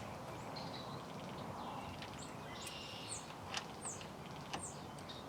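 Quiet outdoor background with a few short, high, downward-gliding bird chirps scattered through it.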